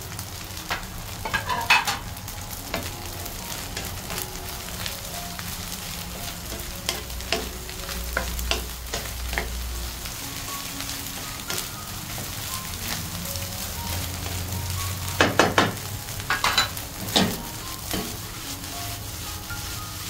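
Fried rice sizzling in a hot pan while it is stirred and tossed with a spatula, with scattered scrapes and clicks against the pan and a run of louder scrapes near the end. This is the last stir of the finished fried rice, with chopped green onions just added.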